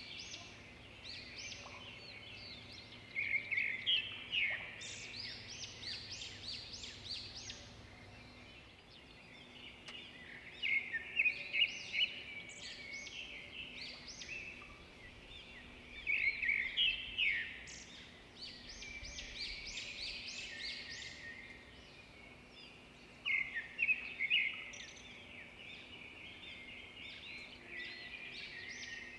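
Small birds chirping and twittering: clusters of quick high chirps come and go several times, with softer twittering between.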